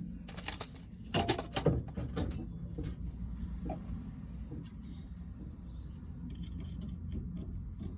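A few sharp knocks and clicks about a second in, as metal tools and the chainsaw muffler are handled and set up for hacksawing, then a low steady hum with scattered small clicks.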